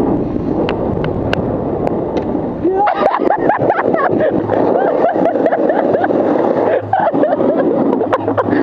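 Snowboard sliding over packed snow with wind buffeting the action-camera microphone, a steady rushing noise with scattered small clicks; muffled, indistinct voices come in about three seconds in.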